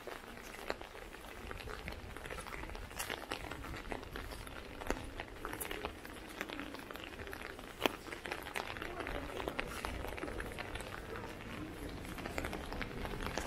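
Outdoor street ambience: scattered, irregular footsteps and clicks on wet cobblestone paving, over a steady low wind rumble on the microphone.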